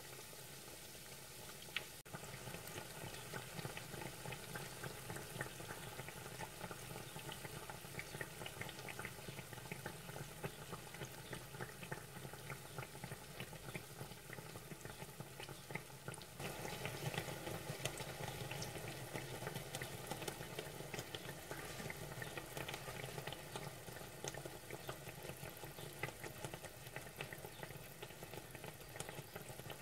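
Bread-dough sticks (quẩy) deep-frying in hot oil in a steel pot: a steady bubbling sizzle full of fine crackles, getting louder about two seconds in and again about halfway through.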